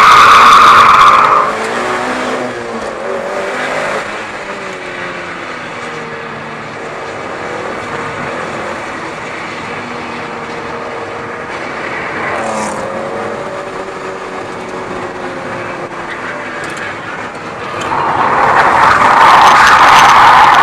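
Mitsubishi Lancer Evolution VIII's turbocharged four-cylinder engine running hard on track, heard from a hood-mounted camera in the wind. It is very loud and harsh for the first second or so, then quieter with the engine note rising and falling through the throttle. It turns loud and harsh again a few seconds before the end.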